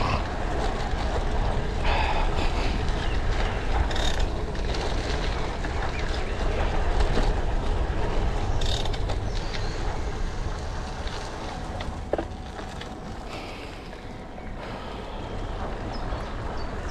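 Bicycle tyres rolling and crunching over a gravel path as the bike is ridden, with wind rumbling on the microphone. It gets quieter after about twelve seconds.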